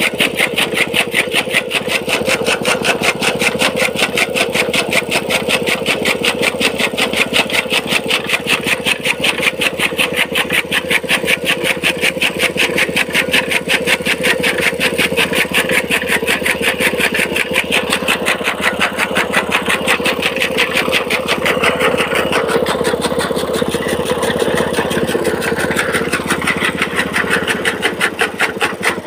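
Small petrol engine running steadily, belt-driving a flywheel chaff cutter (toka) that is chopping green fodder, with a fast, even beat of blade strokes throughout.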